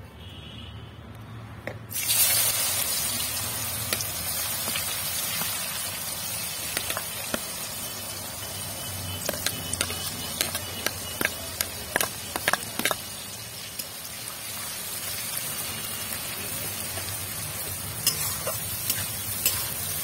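Sliced onions frying in hot mustard oil in an aluminium kadai: the sizzle starts suddenly about two seconds in as the onions go into the oil, then holds steady. Sharp clinks of a metal spoon and spatula against the pan and plate come in a cluster around the middle and again near the end.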